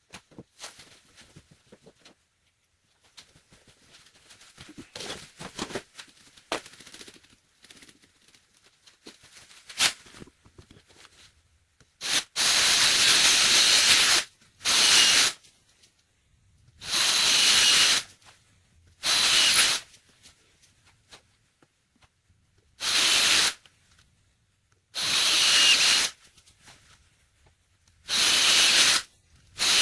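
Faint clicks and rubbing, then about eight short bursts of loud hissing spray, each lasting one to two seconds and stopping sharply.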